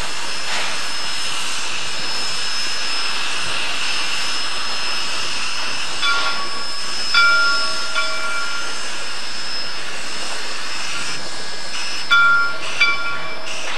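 Steam whistle of a Shay geared locomotive sounding a chord of several tones in short blasts: two from about six seconds in, and a quicker run of them near the end. A steady hiss runs underneath.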